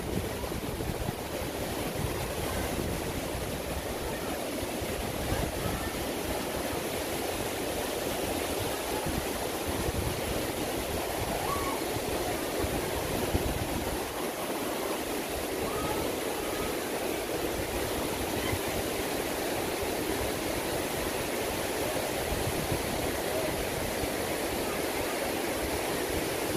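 Fast river rushing over rocks: a steady, unbroken wash of white water.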